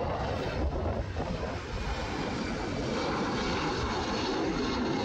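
Twin jet engines of an Airbus A320-family airliner running at takeoff thrust as it rotates and lifts off: a steady, loud rumble and hiss with faint high whining tones.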